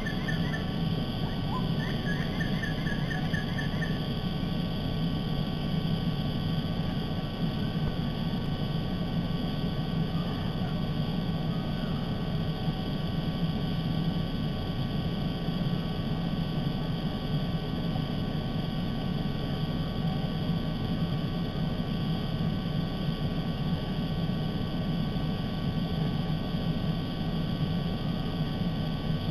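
Steady low rumble and hum of background noise picked up by the nest camera's outdoor microphone. A bird gives a short, rapid trill about at the start and again from about two to four seconds in.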